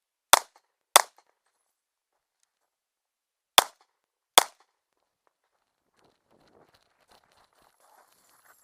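Four shots from a 9mm HK SFP9 pistol, fired as two pairs a few seconds apart. Then faint rustling with a few small clicks.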